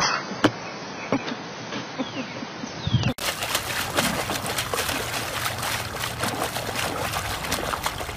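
A dog digging in a muddy puddle with its front paws: rapid, irregular wet splashing and slapping of water and mud, starting about three seconds in. Before that there are a few sharp knocks over a steady hiss.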